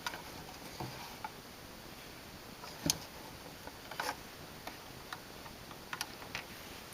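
A few light, sharp clicks and taps, unevenly spaced at roughly one a second, over faint room noise.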